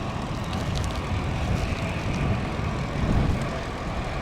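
Wind rushing over the camera microphone of a moving road bicycle, a steady low rumble that swells slightly about three seconds in.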